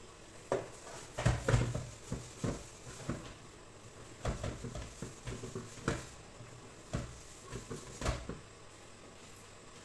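Stainless steel pot being scrubbed by hand with a sponge in a stainless steel sink: irregular clunks and scrapes as the pot is turned and knocks against the sink, loudest about a second and a half in.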